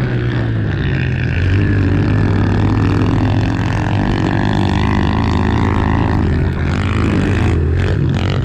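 Small single-cylinder four-stroke pit bike engine running fairly steadily, with only slight changes in pitch.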